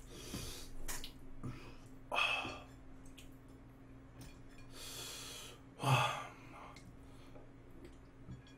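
A man breathing hard through his mouth while eating very spicy noodles: a few loud sighing exhales and gasps, the strongest about two seconds in and again about six seconds in, as he copes with the heat in his mouth.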